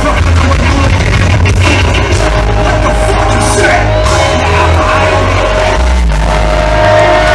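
Loud live concert music through a PA: heavy bass notes in long blocks under a held synth note, with voices yelling over the music.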